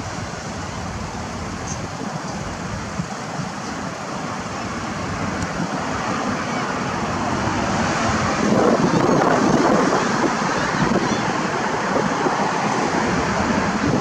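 Street traffic noise mixed with wind on the microphone, a steady rushing noise that grows louder about halfway through.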